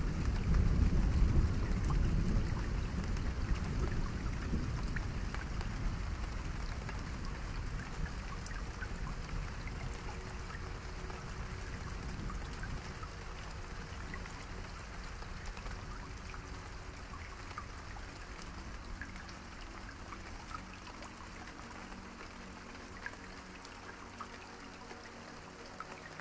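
Rain falling, with scattered faint drip-like ticks and a low rumble that dies away as the whole sound gradually fades.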